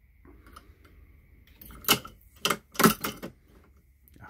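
Frankford Arsenal hand depriming tool and fired brass cartridge cases: a few sharp metallic clicks and clinks as a case is seated and deprimed, bunched about two to three and a half seconds in.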